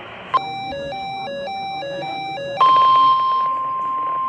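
Weather radio alert: after a click, a warbling alarm switches rapidly between two pitches. About two and a half seconds in it gives way to a single steady high tone, the NOAA Weather Radio warning alarm tone that comes before a watch or warning message.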